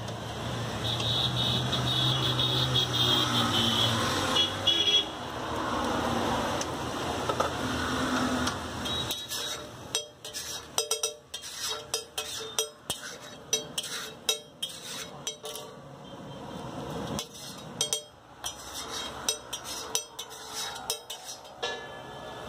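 Road traffic with vehicle horns sounding for the first several seconds. Then a flat metal spatula clacks and scrapes irregularly against a hot iron griddle as egg gravy is stirred and chopped on it.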